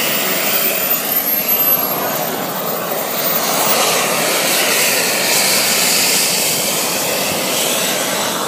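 Small gas turbine of a radio-controlled Boomerang model jet running as the model taxis out: a loud, steady rush of jet noise with a thin high whine over it.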